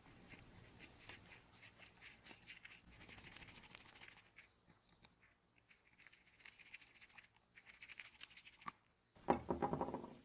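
Screwdriver turning small brass screws into the brass end cap of a wooden spirit level: rapid fine scratchy clicks in two spells. A short, louder knock comes near the end.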